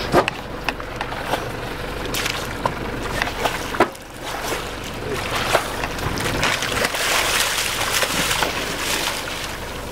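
Sea water splashing and sloshing at the side of a small boat, with scattered short knocks and clicks from handling on board.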